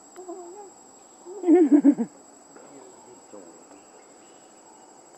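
Insects buzzing steadily in a high, unbroken drone. About a second and a half in, a short loud burst of a voice in four quick pulses.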